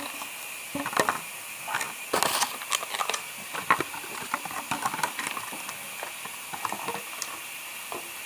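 Irregular clicks, taps and crackles of slime and its plastic pots being handled and set down, busiest in the first few seconds, over a steady hiss.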